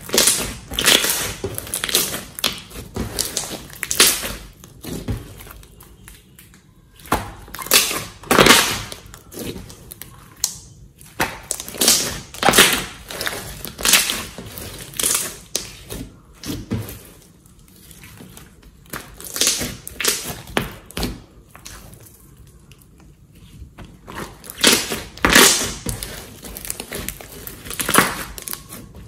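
A large mass of glossy slime being kneaded and squeezed by hand, giving wet squelches and sticky crackles. They come in irregular clusters with short pauses between them.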